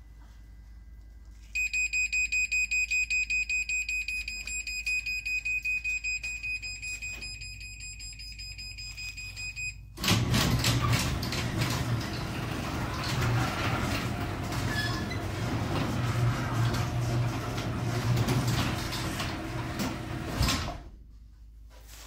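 LiftMaster garage door opener sounding a rapid run of high beeps for about eight seconds, the warning it gives before a remote-commanded close. Its motor then runs for about ten seconds, drawing the sectional door down along the rail, and the noise ends with a short thump as the door reaches the floor.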